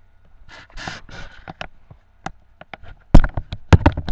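Handling noise from a handheld camera being moved about: a soft rustle, light clicks, then a run of loud knocks and bumps starting about three seconds in.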